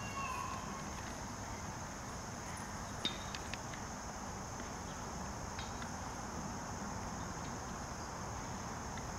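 Steady high-pitched chorus of insects, with a few faint ticks.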